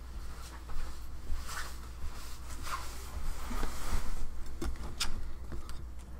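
Handling and movement noise: rustling and scattered small clicks and knocks as a webcam is set up and a person shifts into place in front of it, busiest from about three to five seconds in, over a low steady hum.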